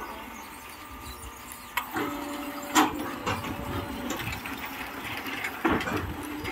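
Hydraulic concrete block making machine running: a steady mechanical hum comes in about two seconds in, with a few sharp clanking knocks, the loudest near the middle and near the end.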